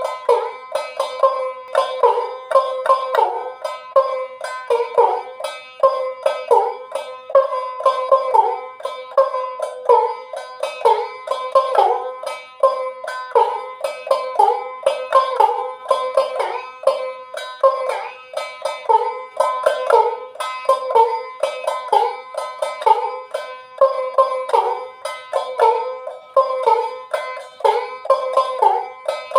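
Ektara, the single-string Baul folk instrument, plucked in a steady repeating rhythm of about two to three strokes a second, its one twanging note bending in pitch.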